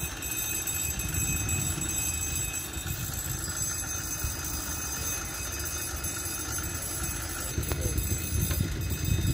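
Railway level-crossing warning signal sounding steady high tones over a low, uneven rumble, which swells about three-quarters of the way in.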